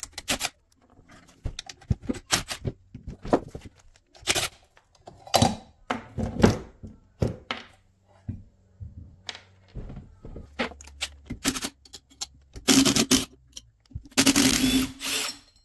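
Hand disassembly of a Rotax two-stroke snowmobile engine's recoil starter: irregular knocks, clanks and scrapes of metal tools and parts. Near the end comes a denser rattle lasting about a second and a half.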